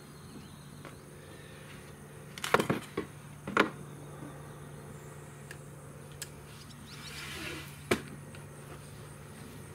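Sharp metallic clacks and knocks of an AR-style rifle being handled on a shooting bench: a loud cluster about two and a half seconds in, another a second later, and a single sharp clack near the end.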